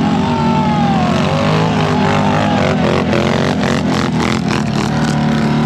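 Quad bike engine revving hard under load as it climbs a steep grassy slope with its wheels spinning. A rapid run of sharp knocks comes between about two and a half and five seconds in.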